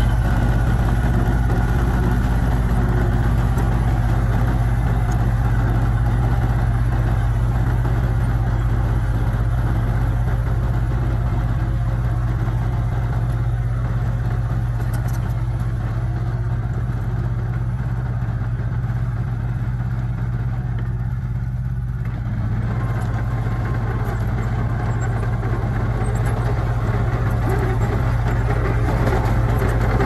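Diesel engine of a small Komatsu crawler bulldozer running steadily as it pushes soil and rock. A few seconds before the end, the engine sound dips briefly and then returns to its earlier level.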